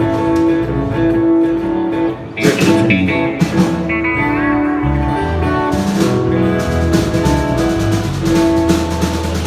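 Music led by guitar, with held notes over low bass notes and occasional drum hits.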